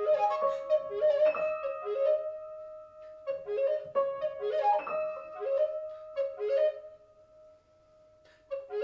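Contemporary chamber music for two players. A long held note sounds under short, detached repeated notes that dwindle and grow quiet after about seven seconds, then a brief cluster of notes comes near the end.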